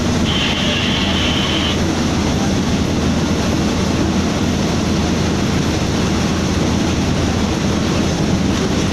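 Diesel locomotive running, heard from inside its cab: a loud, steady engine drone with running noise. Near the start, a high steady whine sounds for about a second and a half.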